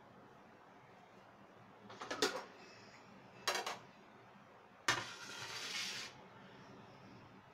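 Three short clattering knocks about a second and a half apart, the last followed by about a second of rustling noise, over faint room tone.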